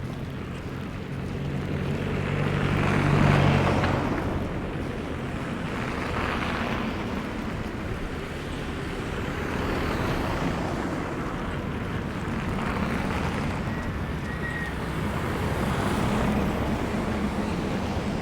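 City street traffic: vehicles passing one after another, each swelling up and fading away, the loudest with an engine hum about three seconds in.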